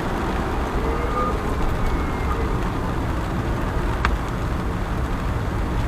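Car driving through heavy rain: a steady rush of tyre, road and rain noise, with one short click about four seconds in.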